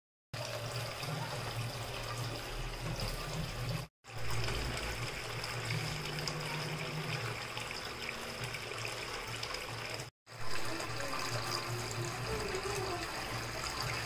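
Small homemade cement tabletop waterfall fountain running: water splashing and trickling steadily as it falls from a row of thin pipes and spills over a ledge into the water-filled basin. The sound cuts out briefly twice, about 4 and 10 seconds in.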